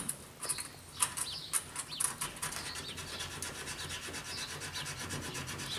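White paint pen scribbling on a paper template, colouring in a hole outline. A few separate scratchy strokes, then fast, even back-and-forth scribbling from about halfway through.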